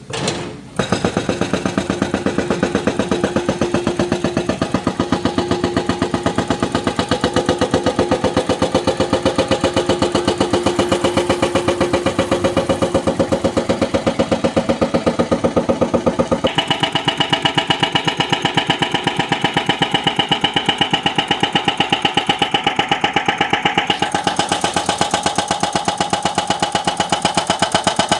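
Excavator-mounted hydraulic breaker pounding a cracked concrete road slab: a fast, steady hammering that starts suddenly about a second in, its ringing tone changing pitch twice as the chisel works the concrete.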